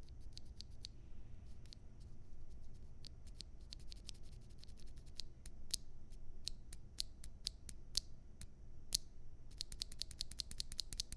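Keystrokes on a Monstargears Alu XO V2 mechanical keyboard with stock (unlubed) NovelKeys Cream linear switches, a brass plate and GMK keycaps: separate key presses at uneven intervals, then fast continuous typing beginning about nine and a half seconds in.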